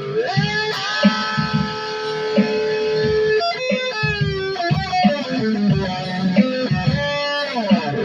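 Electric guitar with a Floyd Rose tremolo playing long held notes: the first bends up in pitch and sustains, a quick run of notes comes around the middle, and the notes slide down in pitch near the end.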